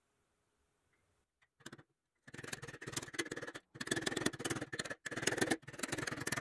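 A white stick scraped rapidly back and forth against the painted pressed-steel body of a toy truck, in four runs of scraping with short breaks, after a couple of light taps.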